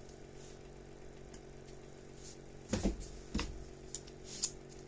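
Plastic wrestling action figure handled by hand: a few short clicks and knocks in the second half, over a faint steady hum.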